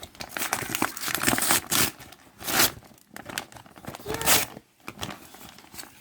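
Packaging of a 3.5 mm audio cable being crinkled and torn open by hand, in irregular crackly bursts, with louder rips about two and a half and four seconds in.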